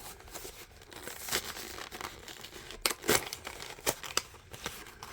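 Packaging being handled: crinkling and rustling with several sharp clicks and taps, the loudest about three seconds in.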